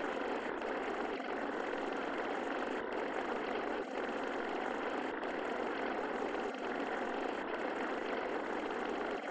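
Steady, even hiss-like noise held to the middle range, with no pitch or rhythm of its own apart from a faint brief dip about every two and a half seconds. It is the constant noise bed of a subliminal audio track.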